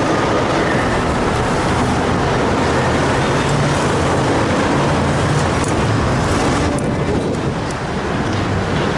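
Steady city street traffic: cars and other motor vehicles running close by, with a continuous low engine hum.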